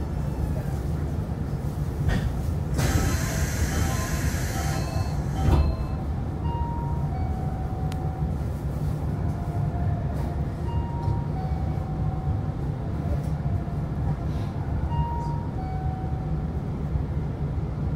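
Nankai 8300 series electric train running, heard from on board: a steady low rumble with short faint tones. A loud hiss swells in for about two seconds a few seconds in, followed by a low thump.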